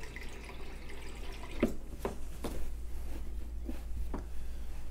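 Kitchen faucet running water into a measuring cup, with a few light knocks and clinks as the cup and tap are handled.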